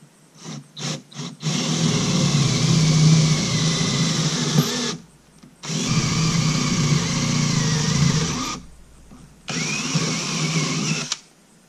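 Cordless drill run in a few quick trigger blips, then in three long runs of a few seconds each with short pauses between, working into a plywood floor; its pitch wavers slightly during each run.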